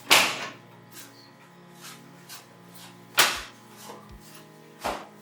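Sharp knocks and clinks from handling screws, a screwdriver and parts against a metal PC case: three loud ones, just after the start, about three seconds in and near the end, with fainter ticks between.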